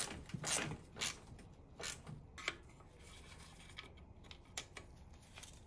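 Scattered light clicks and scrapes of a socket wrench and extension on the automatic gearbox's sump-pan bolts, mostly in the first half.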